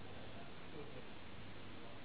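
Room tone of a quiet snooker room: steady background hiss and hum with a faint murmur of voices, and no ball strikes.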